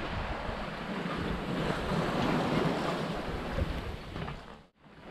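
Wind buffeting the microphone over the rush of sea water along a sailboat's hull. The sound drops out briefly near the end.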